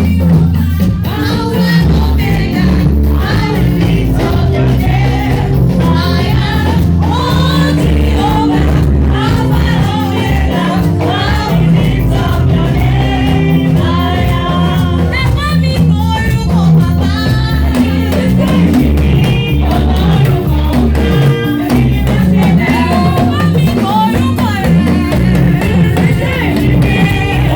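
Gospel praise music: voices singing over a band with a steady bass line and a drum beat.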